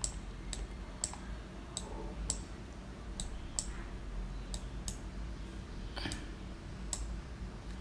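Computer mouse clicking: about a dozen short, sharp clicks at irregular spacing, over a faint steady low hum.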